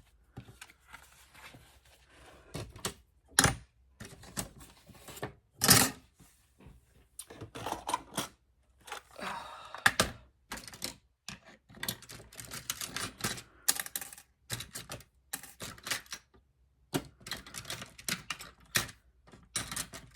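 Paper pages being handled: rustling and sliding sheets, with many irregular sharp taps and clicks.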